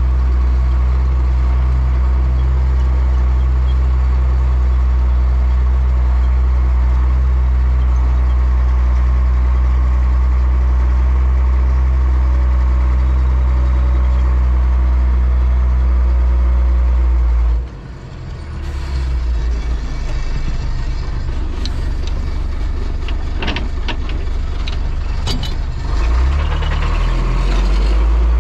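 Tractor diesel engine running steadily, heard from inside the cab. About two-thirds of the way through the sound changes abruptly to a rougher, less even engine note with a few sharp clicks and rattles, then steps up again near the end.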